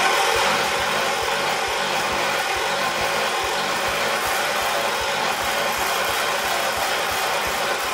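Electric starter cranking the 1978 John Deere 316's rebuilt two-cylinder engine in one long attempt, with a steady, even beat of compression pulses; it stops near the end without the engine catching. It is a hard-start attempt on primed fuel; the owner next turns to the battery charger and suspects the starter needs rebuilding.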